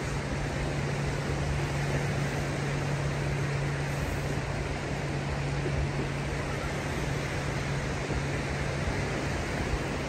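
Steady rush of surf and wind on the microphone along an open beach, under a steady low hum that fades near the end.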